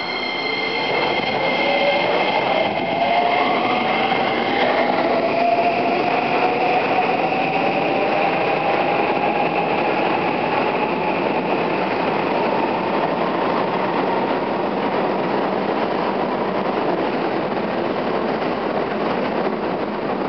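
A Toei 5500 series electric train pulling out and accelerating past. Its traction motors whine, rising slowly in pitch as it gathers speed, over continuous wheel and rail noise as the cars roll by. Steady high tones sound for the first four or five seconds and then stop.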